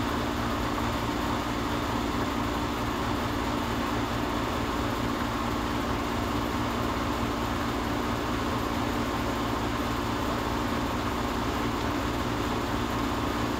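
Steady mechanical hum with a low steady tone, at an unchanging level throughout.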